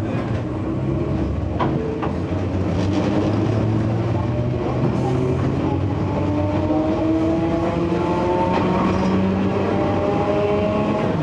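Enshu Railway 30-series electric train's nose-suspended traction motors and gearing whining as the train accelerates. Several tones rise steadily in pitch over the rumble of the running gear, with a few clicks in the first three seconds.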